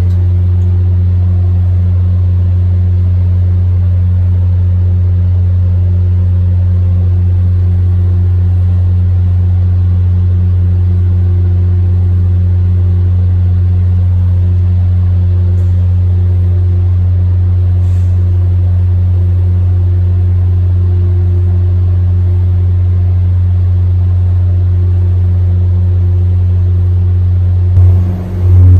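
Diesel-hauled MBTA commuter train standing at a station platform, its locomotive idling with a steady, loud low hum that does not change. The sound dips briefly near the end.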